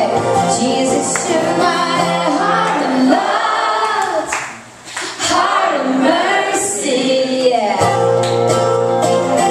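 A woman singing live with her own strummed acoustic-electric guitar. The guitar falls away about two seconds in, leaving the voice nearly alone with a brief break in the middle. The guitar comes back in near the end.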